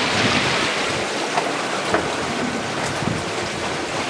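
Steady wind noise on the microphone over water washing against a small boat's hull, with a couple of faint knocks.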